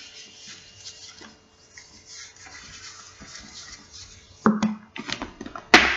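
Hands rummaging among items inside a stiff leather handbag: quiet rustling and small clicks, then a louder knock about four and a half seconds in and a sharp click near the end.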